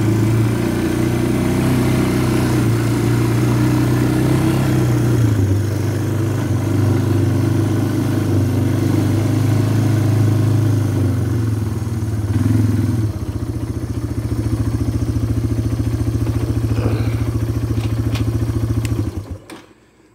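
Yamaha four-wheeler's engine running steadily while riding, dropping to idle about two-thirds of the way through, then shut off near the end.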